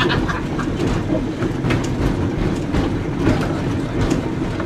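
Vintage 1928–29 Oporto-built, Brill-type streetcar running along the track, heard from inside the wooden car: a steady low rumble with repeated sharp clacks from the wheels and car body.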